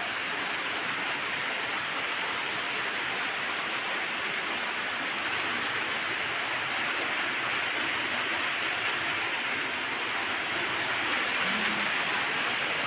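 Steady rain falling, an even hiss of downpour that holds at the same level throughout.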